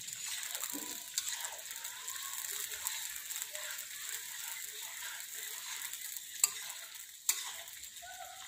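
Cauliflower florets deep-frying in hot oil in a karahi, a steady sizzle, while a metal spatula stirs and scrapes them, with a couple of sharp clinks of the spatula against the pan near the end.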